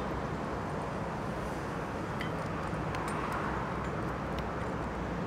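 Steady background hum of the open workshop, with a few faint, light clicks as the plastic roof-rack foot is handled.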